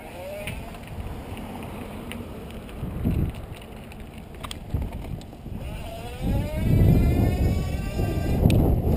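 Cyclone 360 W electric-bike motor, driving through the bicycle's gears, whines briefly near the start and then whines rising in pitch as the bike speeds up a little past halfway. Wind rushes on the microphone from then on, and there are a few sharp clicks.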